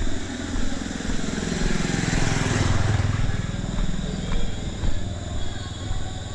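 A motor vehicle engine running, swelling louder about two to three seconds in and then easing off.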